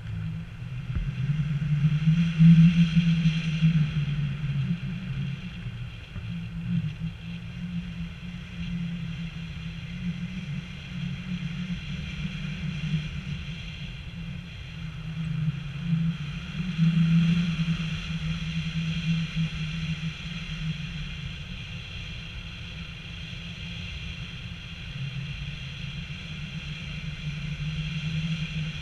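Wind rushing over an action camera's microphone during a paraglider flight, a steady rumble that swells in gusts about two seconds in and again about halfway through.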